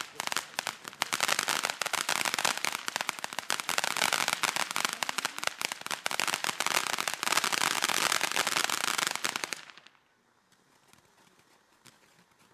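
Weco 'Monster' firework fountain spraying, with a dense, fast crackle of many small pops over a hiss. It dies away quickly about ten seconds in, leaving only a faint background.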